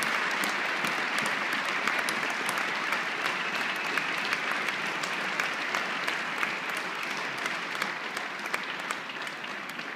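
Audience applauding in a large ice arena, many hands clapping together and slowly dying down toward the end.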